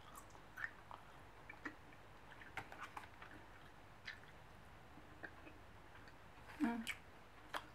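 A person chewing a sticky mango ginger chew, with soft, irregular clicks and smacks from the mouth. There is a brief louder mouth sound near the end.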